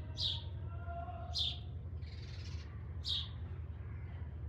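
A small bird chirping: three short, high chirps, each dropping quickly in pitch, a second or more apart.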